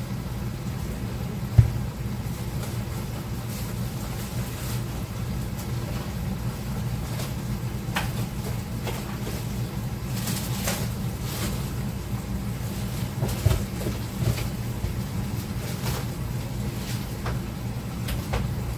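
Rummaging through a low kitchen cupboard for a bag of rice: scattered knocks of items being moved and brief rustling, the sharpest knock about a second and a half in, over a steady low hum.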